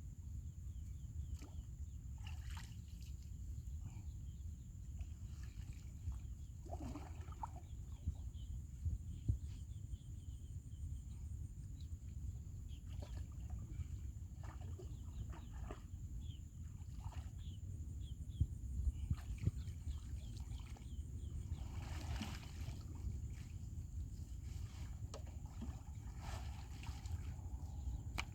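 Water sloshing and trickling with scattered small knocks and brief splashes, over a steady low rumble.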